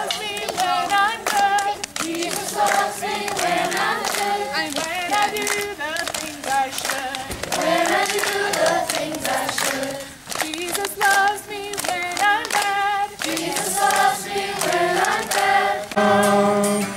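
A group of people singing together with hand clapping: a campfire singalong.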